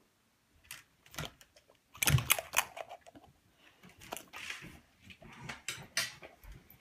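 Two dogs eating rice off a metal fork: irregular clicks and taps of fork, teeth and mouths, loudest in a quick cluster about two seconds in.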